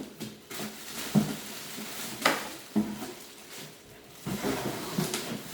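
Knocks and rustling of a pressure washer and its parts being packed back into a cardboard box. Several separate knocks, the sharpest about two seconds in, come between softer rustles.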